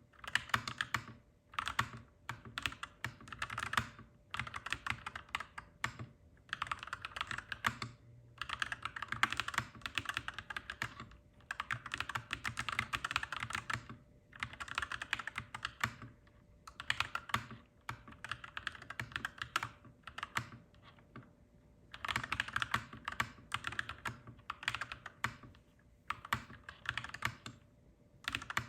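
Mechanical keyboard being typed on: clacky keystrokes in quick runs of a few seconds, broken by short pauses. A faint steady hum sits underneath.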